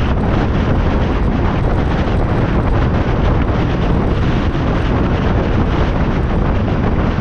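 Steady wind rush buffeting a GoPro's microphone on a moving motorcycle, with the bike's running noise underneath.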